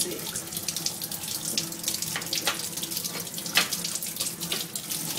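Kitchen tap running onto hands and a soaked salt cod steak in a stainless steel sink, water splashing as fingers rub the fish clean of its loosened scales. Irregular splashes, one louder about three and a half seconds in.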